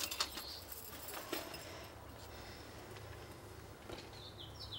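Quiet room tone with a low steady hum and a few light clicks at the start. Near the end comes a quick run of short, high bird chirps.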